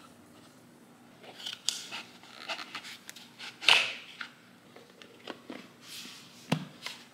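Irregular clicks, knocks and short rustles as the parts of a BLÅSVERK table lamp are handled and fitted together, with one louder knock about halfway through.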